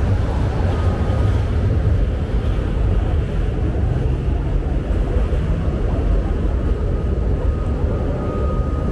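Steady low rumble of city street traffic, with a faint high tone near the end.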